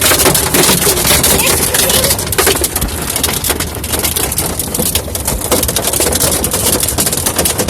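Hailstones pelting down, a dense, loud clatter of ice striking the surfaces around the microphone.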